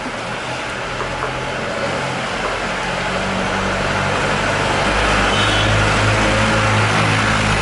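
A motor vehicle engine running, its low hum growing gradually louder and strongest in the second half, over a steady wash of street noise.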